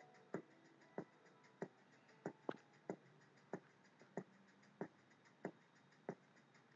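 Faint background music in a sparse passage: a steady percussive click about one and a half times a second, with barely any melody.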